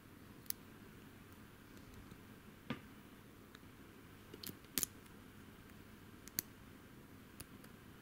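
Small metallic clicks of a lock pick working the pins inside a brass Stanley 40mm padlock, scattered a second or two apart, with a close run of sharper clicks near the middle.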